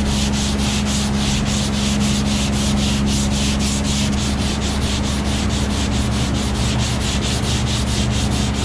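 80-grit sandpaper on a hand sanding block scraping back and forth over cured body filler on a car door, in quick even strokes of about four a second. The filler is being blocked hard to cut it flat. A steady low hum runs underneath.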